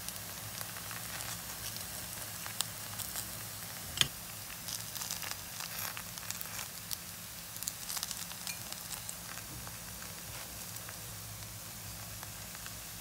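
Cooking oil sizzling and crackling in a frying pan for bánh xèo, with scattered small pops and one sharp click about four seconds in.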